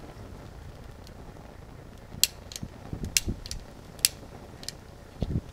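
Trigger of a long-nosed utility lighter clicking, about six or seven sharp clicks from about two seconds in, with a few dull low thumps among them.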